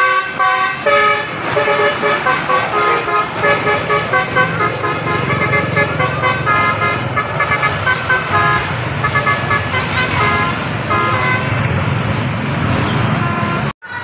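Multi-tone 'telolet' bus horn playing a quick melody of short notes over and over, over the rumble of the bus engine as it passes. The sound cuts out briefly near the end.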